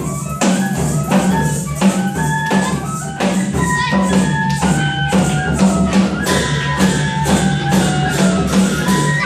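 Newari traditional dance music: a steady beat of sharp, jingling percussion strikes, with a melody of short held notes over a steady low tone.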